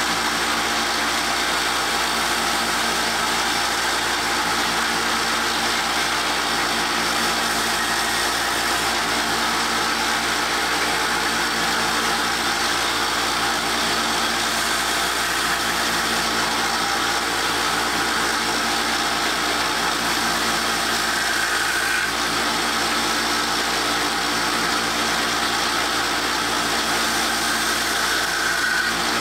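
Harbor Freight 1x30 belt sander running with a steady motor hum while a broadhead is held against the moving belt and sharpened, raising a burr on the edge.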